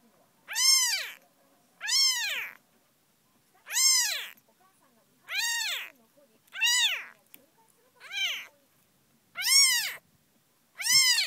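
Very young kitten, its eyes just opening, meowing over and over: short high-pitched cries, each rising then falling in pitch, about one every second and a half.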